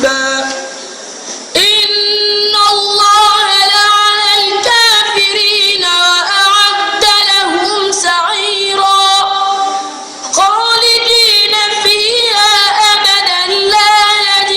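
A child's voice reciting the Quran in a melodic tajwid style, with long held notes and wavering ornaments. It pauses briefly for breath about a second in and again about ten seconds in.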